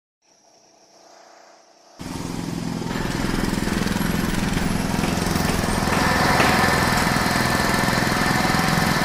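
Faint background sound, then about two seconds in a sudden loud din of city noise pollution: engines and machinery layered together, growing denser and louder toward the end.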